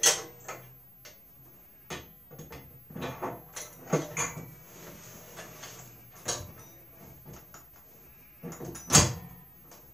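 Irregular metal clinks and knocks as a wheel and washers are worked onto a lawn cart's steel axle. The sharpest knock is right at the start and another comes about nine seconds in.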